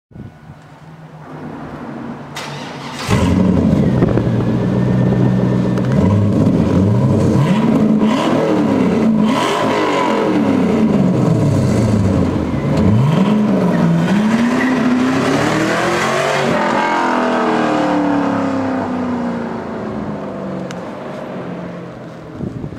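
2002 Chevrolet Camaro Z28's 5.7 L LS1 V8 on its stock exhaust, run at wide-open throttle. The sound jumps to full loudness about three seconds in, and the engine pitch climbs and drops again and again. Near the end it falls away in one long slide as the engine eases off and fades.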